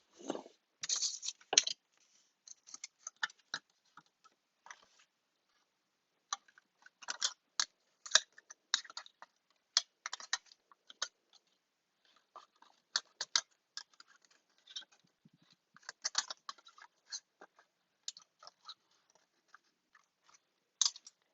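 Irregular crinkling and clicking of clear tape and paper craft pieces being handled, in scattered clusters with short pauses.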